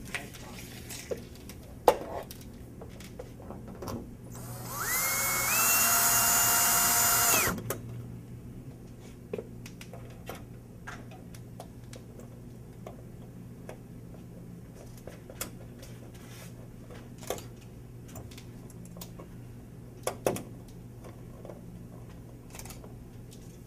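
A sharp click about two seconds in, then a power drill whines for about three seconds, its pitch rising as it speeds up and stepping up once more before it stops. Light clicks and taps are scattered around it.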